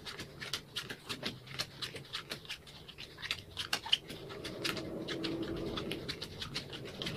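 Playing cards being dealt one at a time from the hand onto piles on a hard floor, sorted by suit: a string of light card clicks and slaps, a few a second.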